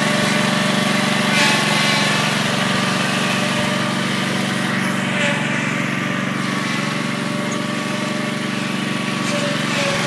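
Small gasoline engine on a walk-behind shed-moving dolly running steadily as the dolly is driven.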